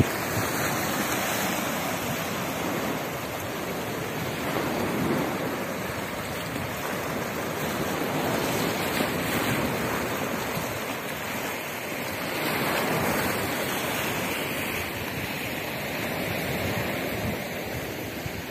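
Sea waves washing and splashing against a rock breakwater, a steady rush of surf that swells and eases every few seconds.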